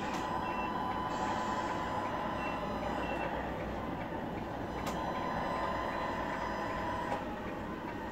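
Tamiya Scania RC truck running on a tile floor: a steady electric-motor and gearbox hum with a whine, broken by a few short high beeps in the first few seconds and a sharp click about five seconds in.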